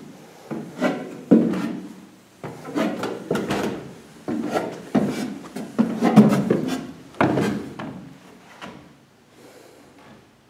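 Footsteps on steep wooden stair treads, climbing: irregular wooden thuds about every half second, some of them ringing a little, thinning out about eight seconds in.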